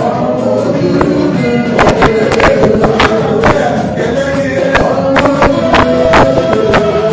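Gospel praise music: a choir or congregation singing over a fast, steady beat of sharp percussion hits.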